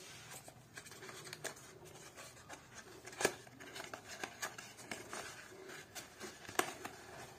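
Small cardboard retail box being opened by hand: faint scraping and rubbing of card as the flaps are prised open and the inner box is slid out, with a few sharper clicks, the clearest about three seconds in and near the end.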